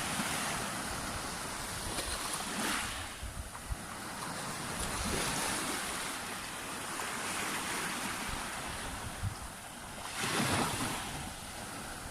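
Sea waves breaking and washing up a beach in a continuous rushing surf that swells several times, the strongest surge about ten seconds in. Wind buffets the microphone with a low rumble underneath.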